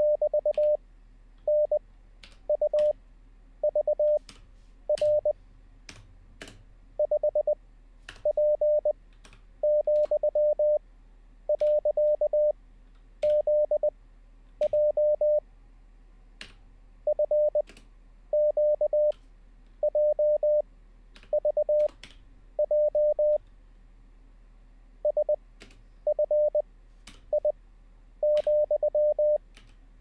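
Morse code practice tones at 600 Hz, each character keyed fast at 20 wpm with long gaps of about a second between characters (Farnsworth spacing, 5 wpm overall). Computer keyboard keys click in the gaps as each character is typed out.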